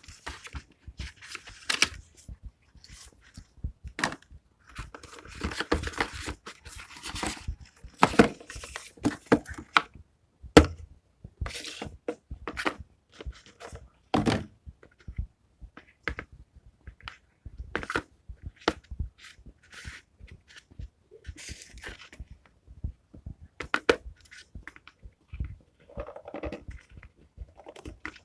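Hands opening a paper-and-card debit card mailer: paper tearing and crinkling, with scattered knocks and thuds as the package and its card insert are handled.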